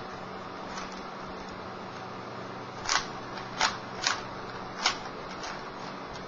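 A Rubik's Cube being turned by hand: its plastic layers click as they are twisted, with four sharper clacks within about two seconds near the middle, over a steady hiss.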